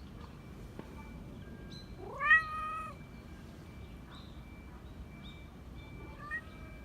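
A cat meowing: one long, loud meow about two seconds in that rises in pitch and then holds, and a short, quieter meow near the end.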